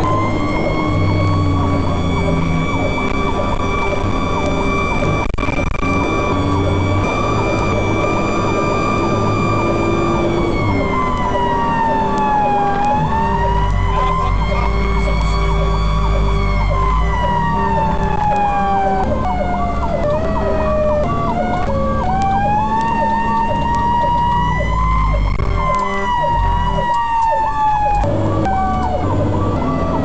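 Fire apparatus siren wailing, heard from inside the cab over the truck's engine drone. Its pitch holds high for about ten seconds, then falls and rises in slow sweeps several times.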